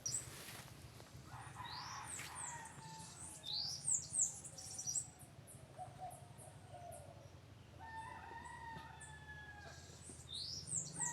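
A rooster crowing twice, the first crow about a second in and the second near 8 seconds, with other birds giving quick high chirps in between and near the end.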